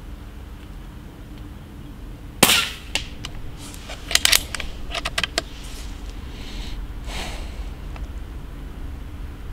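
A single shot from a shrouded .22 Benjamin Fortitude Gen2 PCP air rifle, a sharp report about two seconds in. It is followed over the next few seconds by a run of short metallic clicks, then a couple of soft rustling swishes.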